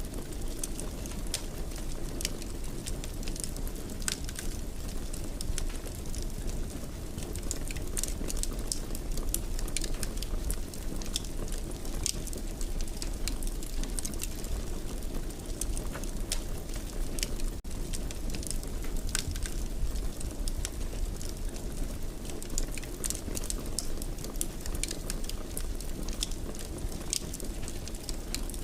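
Fire burning in a fireplace: a steady low rumble with frequent sharp crackles and pops scattered irregularly throughout.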